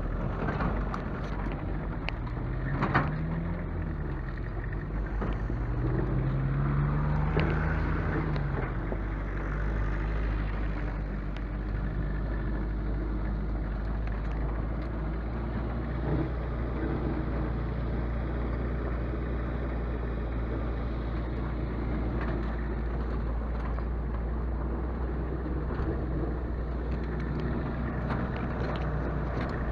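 A vehicle engine running while driving, with a steady low drone; the engine pitch rises and falls twice in the first several seconds as it changes speed, then settles into a steady cruise.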